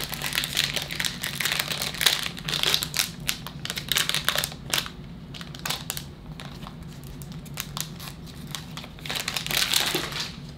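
Wrapper of a 2020 Bowman fat pack of baseball cards being torn open and crinkled by hand, in busy bursts over the first half and again shortly before the end.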